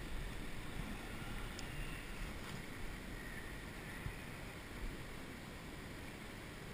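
Steady rush of flowing river water, with a low rumble of wind on the microphone.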